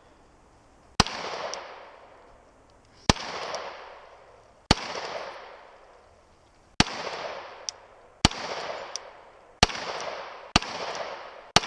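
Firearm fired in single aimed shots, eight of them at an uneven pace of about one every one to two seconds, each trailing off in a long echo. A faint short tick follows a few of the shots.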